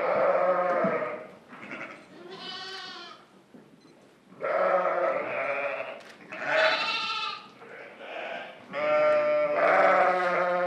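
Sheep and goats bleating: about six calls, some long and some short, with a higher-pitched call about two and a half seconds in.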